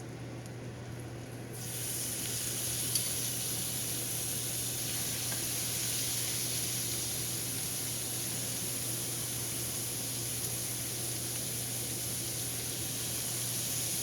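Chicken breast strips frying in butter in a pan, a steady sizzle that starts sharply about a second and a half in.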